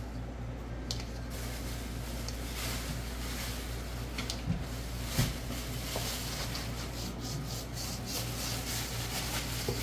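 Hands kneading a soft yeasted flour dough in an enamel basin: steady rubbing and scuffing of dough and palms, with a couple of dull thumps about four and a half and five seconds in.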